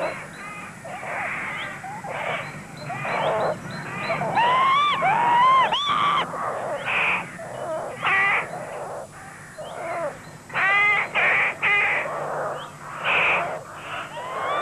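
Crows cawing: a run of short, harsh caws that rise and fall in pitch, following one another closely and overlapping, with a tight cluster of several quick caws about two thirds of the way through. The caws stand for the birds' subtitled bickering.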